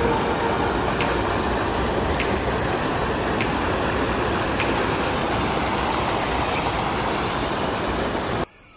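Water rushing and foaming over a low concrete drop into a shallow stream, a steady, loud rush. It cuts off abruptly near the end.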